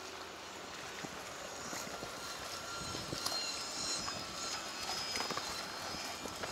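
Steady outdoor background noise by a harbour, with a few faint high tones and scattered light knocks.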